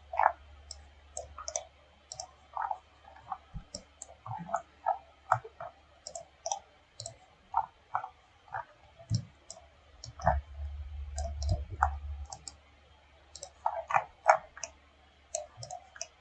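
Irregular light clicking of a computer mouse, a few clicks a second, over a faint low hum that swells for a couple of seconds about ten seconds in.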